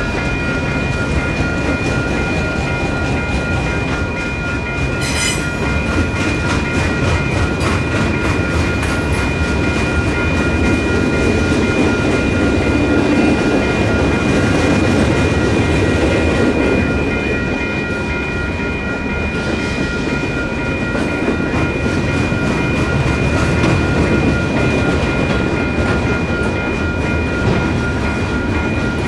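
Freight cars of a manifest train rolling past at a grade crossing: a steady rumble and clatter of steel wheels on the rails, with the crossing's WCH Type 4 electronic bells ringing on without a break while the gates are down. A brief sharp clank stands out about five seconds in.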